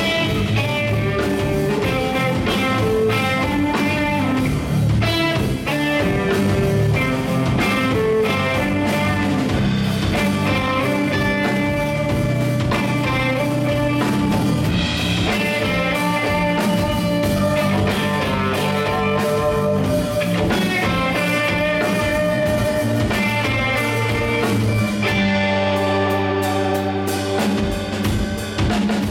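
Live band playing an instrumental passage on two electric guitars, bass and drum kit. Near the end the drums drop out for a couple of seconds under sustained guitar and bass chords, then come back in.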